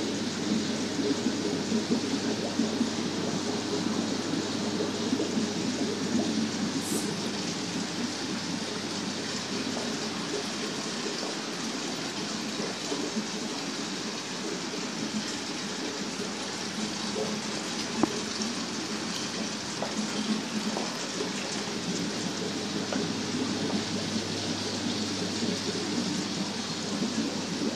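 Steady rush of bubbling, running water from the aquarium tanks' aeration and filtration, with a low steady hum underneath and a single sharp click about two-thirds of the way through.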